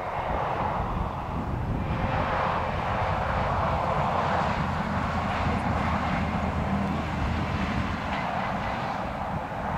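A steady, distant engine drone that swells about two seconds in and holds, over a low rumble.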